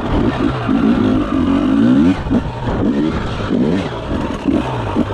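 Enduro motorcycle engine revving hard on a fast dirt lap, its pitch rising and dropping several times as the throttle is worked, with a longer climb that falls away about two seconds in.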